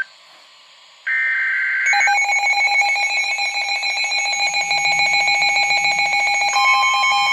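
NOAA weather radios sounding their alert alarms, signalling an incoming weather warning. A two-tone electronic beep starts about a second in, and from about two seconds a loud pulsing alarm tone takes over. A further steady tone joins it near the end.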